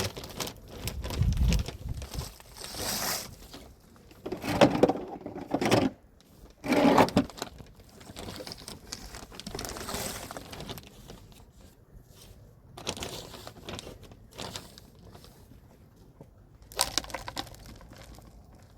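Compost being scooped and poured into a planter tier: irregular rustling and crunching in uneven bursts, the loudest in the first seven seconds.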